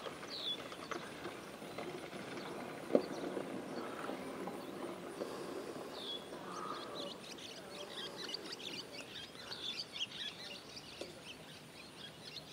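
Birds chirping over steady outdoor ambience, the short high chirps growing busier from about six seconds in. A single sharp click about three seconds in.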